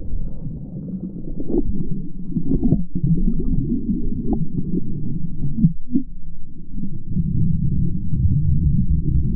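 Muffled underwater rumble and water movement picked up by a submerged action camera in its waterproof housing, with a few faint knocks.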